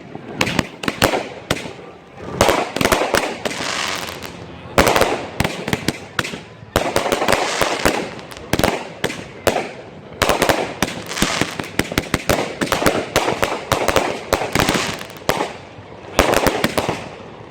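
Consumer fireworks crackling and popping: rapid volleys of sharp cracks that swell and fade in waves every second or two.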